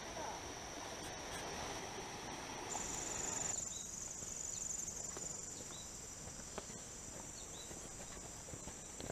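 A steady, high insect chorus trills throughout. For the first three and a half seconds it sits over the rushing of a shallow rocky creek, which stops abruptly at a cut. After that the insect trill remains, with a faint short chirp about once a second.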